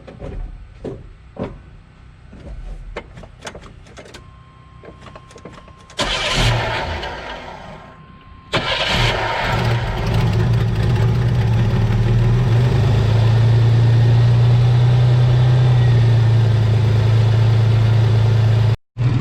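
1985 Chevy S-10's engine being started. After a few seconds of clicks and small knocks, it cranks about six seconds in, catches a couple of seconds later and settles into a loud, steady idle. This is a first run after new valve cover gaskets, to check them for leaks.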